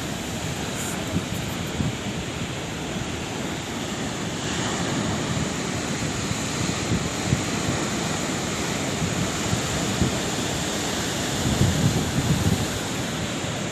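Sea waves breaking and washing on the shore in a steady rush of surf, with a low wind rumble on the microphone. A bigger wave swells louder near the end.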